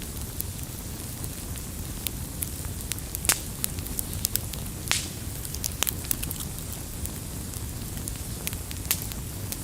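Campfire of burning firewood crackling: irregular sharp pops and snaps over a steady low rumble of flames, with the loudest pops a little after three seconds and near five seconds.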